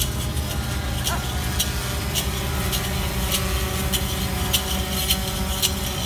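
Bells and metal ornaments on a decorated bull jingling in time with its steps, about two sharp jingles a second, over a steady low hum.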